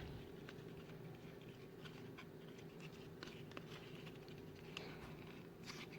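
Faint handling of trading cards: soft scattered ticks and rustles as cards are slid and flipped through by hand, over a low steady room hum.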